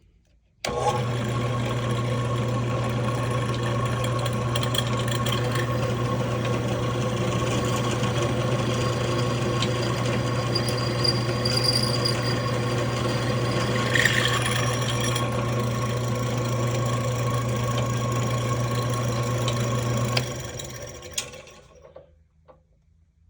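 An electric drill switches on, runs steadily with a constant motor hum for about twenty seconds while boring into a solid aluminum hand wheel, then is switched off and spins down.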